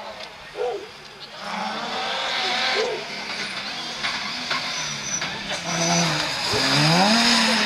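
Rally car engine accelerating hard over a rush of tyre and wind noise. It grows louder about one and a half seconds in, and its pitch climbs and falls with the revs, rising most steeply near the end.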